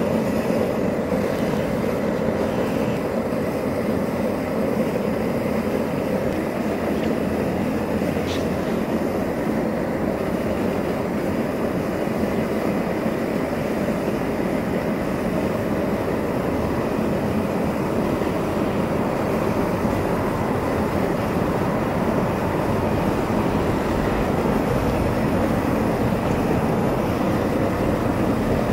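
High-intensity gas torch burning steadily against a block, a continuous even rushing flame noise that does not change.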